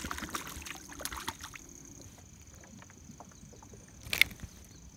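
Water splashing and sloshing as a small hooked bass is reeled up to the boat, settling after about a second and a half, then one sharp knock about four seconds in.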